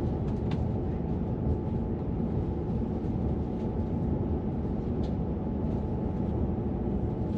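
Steady low rumble of a Transwa Prospector diesel railcar travelling at speed, heard from inside the passenger cabin, with a few faint clicks over it.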